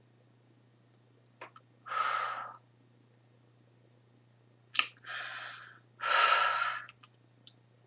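A woman taking slow, deep breaths in and out, three audible breaths with small mouth clicks between them.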